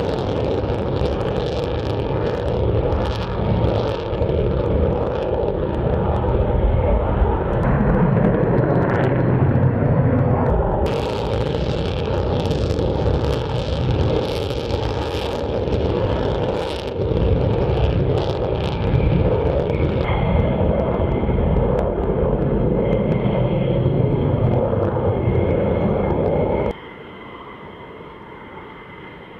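F-16 fighter's jet engine running at takeoff power during the takeoff roll, a loud steady rumble with a thin whine over it later on. Near the end it drops suddenly to a much quieter jet sound.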